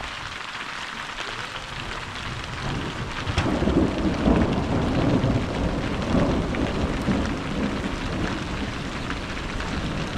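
Steady heavy rain, with a long roll of thunder swelling up about a third of the way in and slowly dying away.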